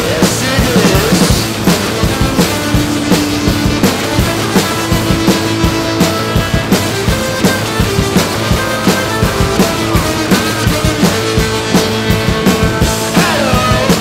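Background rock music with a steady drum-kit beat, no vocals in this stretch.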